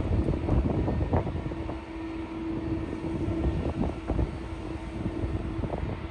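Wind buffeting the microphone in gusts over a low, distant jet-engine rumble, with a steady hum from about a second and a half in until near the end.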